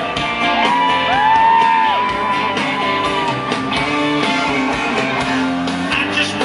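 Live country band playing, with acoustic guitar, heard from the audience in an arena. Long held, bending notes sound over the band in the first few seconds.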